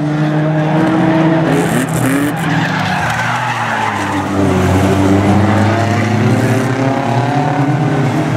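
Several banger racing cars' engines revving as they race round a shale oval, the pitch rising and falling as they accelerate and lift, with tyres skidding. A brief harsh burst of noise comes about two seconds in.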